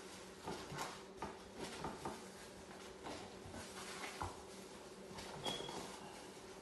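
Chef's knife scoring a whole mojarra fish on a wooden cutting board: faint, irregular soft knocks of the blade cutting through into the board, over a low steady hum.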